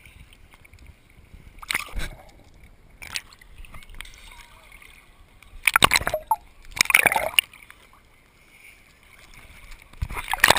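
Water splashing and sloshing around a camera held at the water's surface by a swimmer, in short loud bursts: around 2 s, twice near 6 and 7 s, and again near the end, with low water noise between.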